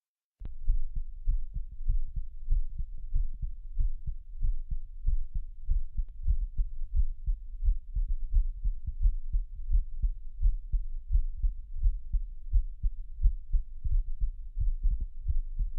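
Human heartbeat picked up through a CloudSteth digital stethoscope: a steady rhythm of low thumps that starts about half a second in and cuts off suddenly near the end.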